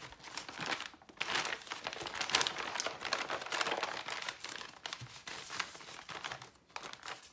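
Sheets of hand-dyed paper rustling and crinkling as they are handled and squeezed, in repeated waves of crackly rustle.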